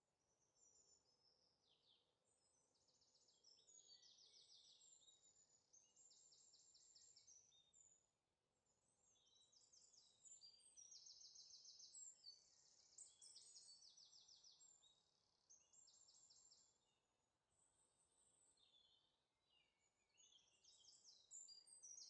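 Faint songbirds chirping and trilling in quick, high-pitched repeated phrases, some notes falling in pitch.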